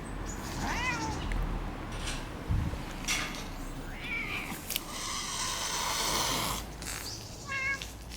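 Cats yowling at each other in a territorial standoff: a few separate drawn-out calls that rise and fall in pitch, and short clipped notes near the end.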